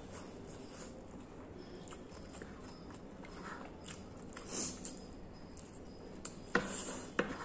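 Close eating sounds of egg noodles being chewed, with small mouth clicks. Near the end, a metal fork and spoon clink sharply twice against the plate while gathering noodles.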